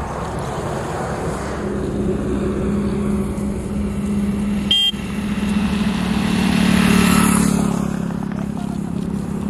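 Road traffic on a highway: vehicle engines running steadily, one passing close and loudest about seven seconds in. A short, sharp high beep sounds about halfway through.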